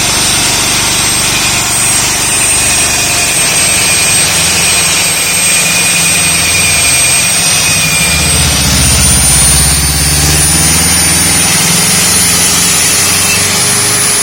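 Concrete core drilling machine running steadily with a high whine over a low motor drone; the low pitch shifts about halfway through as the load on the bit changes.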